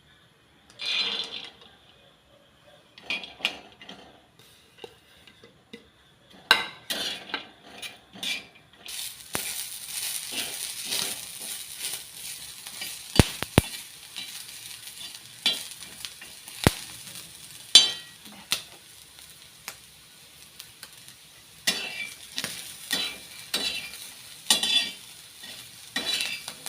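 Fresh corn kernels frying in a pan, with a steady sizzle that starts about nine seconds in and keeps going. A spoon knocks, scrapes and clinks against the pan throughout as the corn is stirred.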